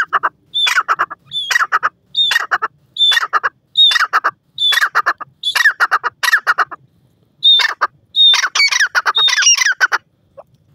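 Grey francolin (teetar) calling: a loud, harsh phrase repeated about once a second, each a short high note followed by a quick stuttering run of lower notes. The calls crowd together near the end and stop about ten seconds in.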